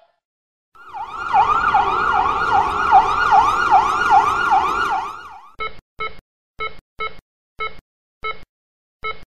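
Emergency-vehicle siren in a fast yelp, its pitch sweeping up and down about twice a second for roughly four seconds. It stops about five and a half seconds in, and a run of short electronic beeps follows, about every half second.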